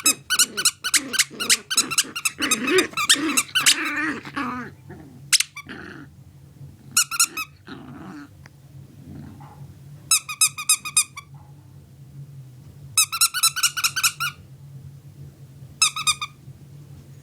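A Chiweenie puppy growls while biting a squeaky plush squirrel toy, squeaking it rapidly and continuously for about four seconds. After that the toy squeaks in short rapid bursts every few seconds as the puppy chews it.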